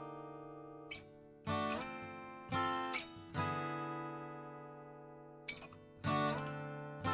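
1965 Epiphone Texan FT79N acoustic dreadnought guitar with a rosewood saddle, played: a handful of strummed chords, each left to ring out and fade before the next, with a longer ringing chord in the middle.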